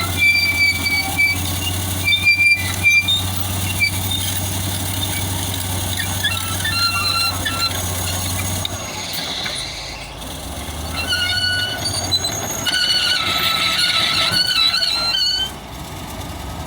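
Caterpillar D8 bulldozer running, its steel tracks squealing with shifting high-pitched tones over the steady engine. The engine note drops about halfway through.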